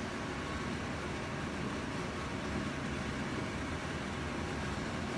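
Steady room noise: an even hum and hiss with no distinct events.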